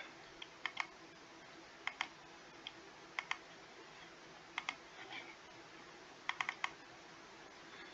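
Sparse clicking of laptop keys or mouse buttons, in small quick groups of two to four clicks, a handful of times, over a faint steady hum.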